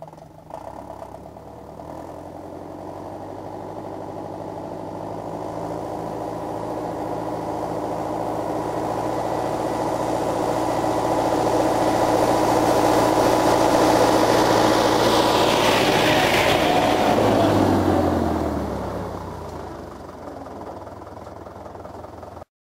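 Case David Brown 995 tractor's three-cylinder diesel engine running as the tractor drives up and past, growing steadily louder as it approaches. Near its closest point the pitch drops and the engine fades as it moves away, and the sound cuts off abruptly just before the end.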